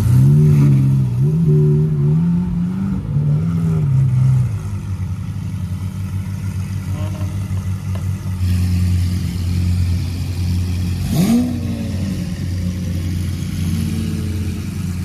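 Lamborghini Aventador V12 engines running with a steady low drone. For the first four seconds one engine's pitch rises and falls as the car creeps into place, and a quick rev blip comes about eleven seconds in.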